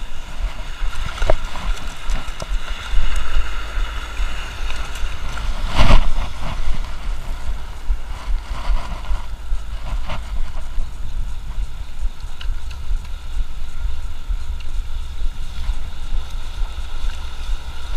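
Wind buffeting the microphone of a camera worn by an angler wading in shallow surf, over the wash of the sea. A few brief knocks come through, the loudest about six seconds in.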